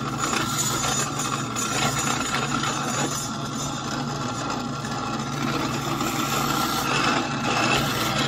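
Drill press motor running steadily while a 15/64-inch bit bores headlight peg holes into a wooden block.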